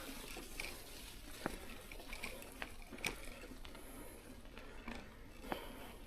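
Faint patter of scattered drops, with small irregular clicks and ticks over a low, even hiss: rain dripping in wet forest.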